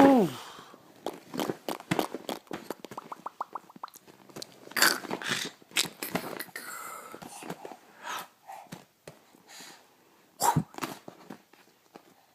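A pet animal making noises: a short rising-and-falling whine right at the start, then a string of snorts, sneezy sniffs and small clicks, with a quick rattle of about ten clicks around three seconds in.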